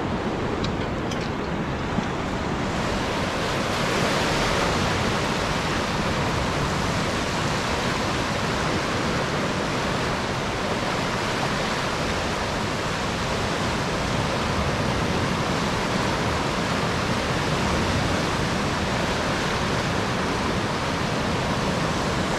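Turbulent water surging and churning out below concrete outlet gates, a loud, steady rushing noise.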